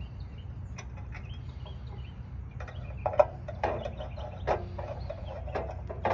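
Wire and metal fittings being handled inside a sheet-metal meter socket enclosure while a ground wire is routed to a terminal lug: scattered light clicks and taps, with one sharper knock about three seconds in, over a steady low rumble.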